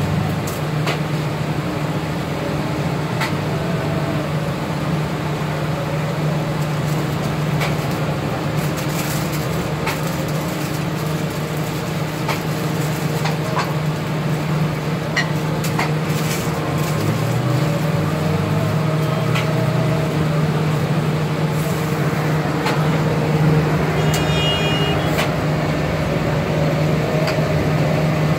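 Steady street traffic noise under a constant low hum, with scattered light clicks as paper is handled at the counter. Near the end there is a short high-pitched beep.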